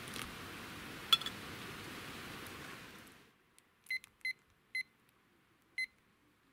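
Boiling water pouring from an electric kettle into a jar of tomatoes, with a sharp click about a second in; the pouring fades out about three seconds in. A digital kitchen timer then gives four short high beeps as its buttons are pressed, three close together and a last one about a second later.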